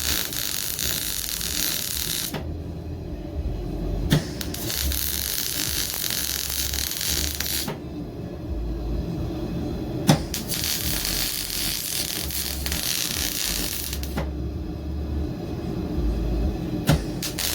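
MIG welder arc crackling and hissing in runs of a few seconds, with short pauses between runs and a sharp click as several of them start.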